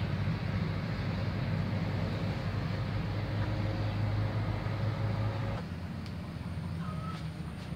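Steady low rumble of background noise, strongest in the low range, which drops in level and changes character about five and a half seconds in.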